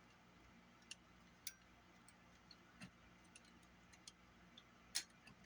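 Sparse, irregular small clicks and taps, about half a dozen, the loudest near the end: small parts and tools being handled while working on a cassette Walkman.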